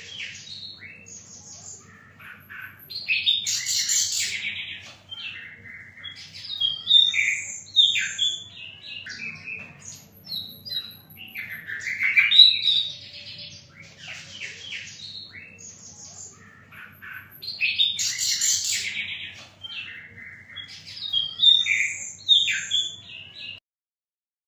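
A sikatan londo flycatcher singing: bursts of high, varied chirps, trills and sharp notes with short pauses between phrases, over a faint low hum. The song cuts off suddenly near the end.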